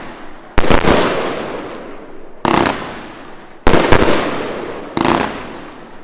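Hallmark Fireworks Queen's Gambit 108-shot finale cake firing: four loud bangs about every second and a half, the first a quick double, each trailing off in a rumbling decay.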